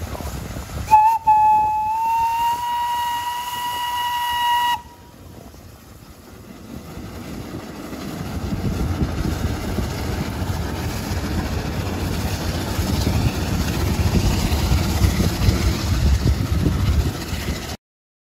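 A steam wagon's whistle blows one long note for about four seconds, rising slightly in pitch, and then cuts off abruptly. After that the wagon rumbles low as it drives over gravel, growing louder.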